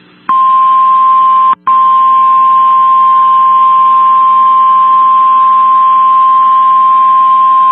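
NOAA Weather Radio 1050 Hz warning alarm tone: one loud, steady single-pitch tone with a brief dropout about a second and a half in. It signals that a warning message, here a severe thunderstorm warning, is about to be broadcast.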